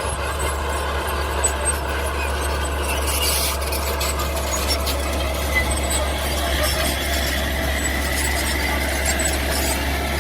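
Mini bulldozer running steadily with a deep engine drone, and a faint high squeal over it, such as from the tracks.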